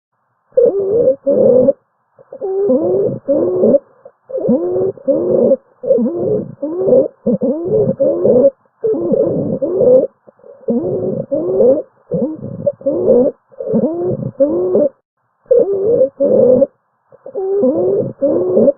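Recorded abnormal lung sounds: continuous, musical adventitious breath sounds of the wheeze kind, each segment holding several sliding pitches, repeating about once a second with brief gaps between.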